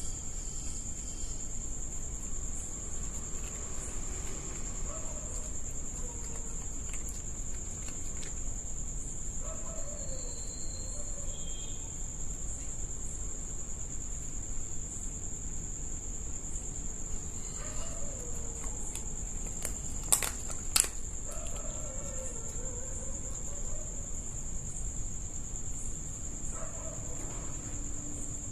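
Crickets chirring steadily in one continuous high-pitched drone, with a few faint rising-and-falling calls in the background and two sharp clicks about twenty seconds in.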